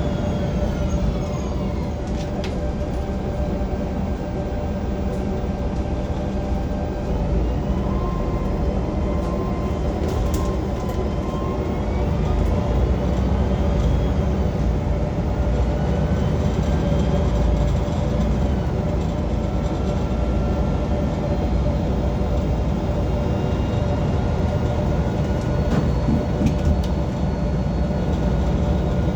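Transperth bus drivetrain running on the move, heard from inside: a loud low rumbling sound, with whining tones that glide down near the start and climb again later as the bus slows and picks up speed.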